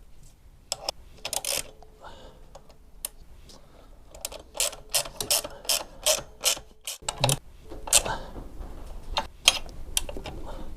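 Ratchet wrench clicking in short uneven runs as it tightens the nut on an exhaust mounting bolt, the clicks coming thickest in the second half.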